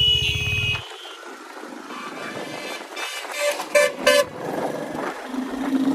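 Vehicle horns honking in road traffic: one horn held over the first second, then three short toots about three and a half to four seconds in. A low engine rumble cuts off abruptly just under a second in.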